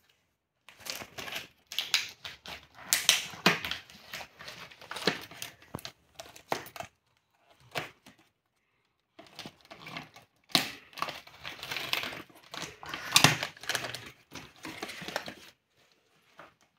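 Crinkling and rustling of plastic toy packaging as small hands pick at it and pull it open, in irregular stretches with sharp crackles and a short pause about seven seconds in.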